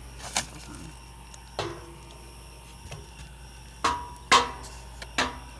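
Five sharp knocks at uneven intervals, each with a brief ringing tail; the loudest is a little past the middle.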